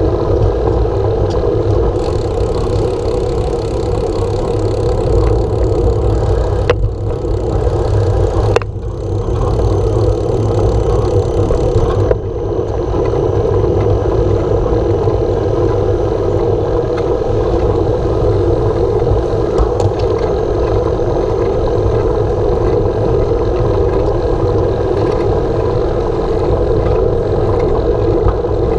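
Steady rushing wind noise on a handlebar-mounted camera's microphone with tyre noise on tarmac as a bicycle rolls along. It dips briefly about seven and nine seconds in.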